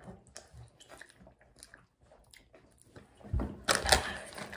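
Takis rolled tortilla chips being crunched and chewed, faint and scattered at first. About three seconds in come louder crunches and the crinkle of the foil chip bag as a hand reaches into it.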